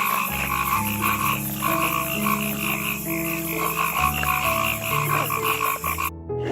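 A chorus of frogs croaking: many rapid, pulsing calls overlapping over steady low tones, cut off suddenly near the end.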